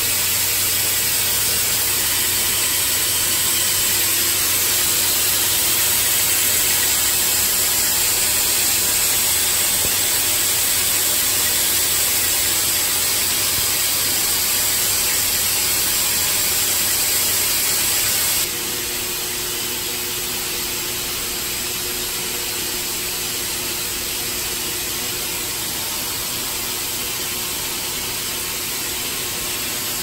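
Steady hiss of cold cryogen vapour venting from frosted lines during a dilution-refrigerator cool-down, with a low hum under it. About two-thirds of the way through the hiss drops in level and a faint steady tone comes through.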